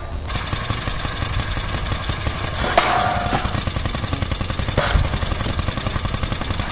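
Heavy machinery running with a fast, steady clatter, broken by loud knocks about three and five seconds in.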